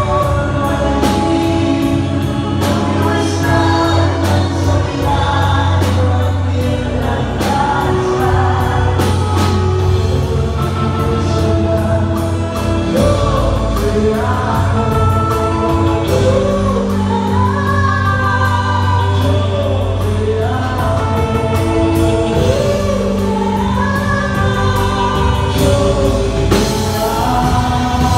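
Recorded song playing: singing voices carrying a melody over bass and a percussive beat.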